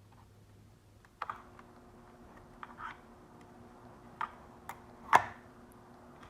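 A handful of sharp clicks and light taps, the loudest about five seconds in: a screwdriver and small screws being worked on a laptop's hard-drive bay.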